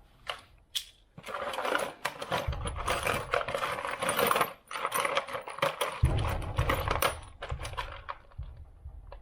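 Small metal screws clinking and rattling as a hand rummages through them, a dense run of sharp clicks with a few duller handling knocks.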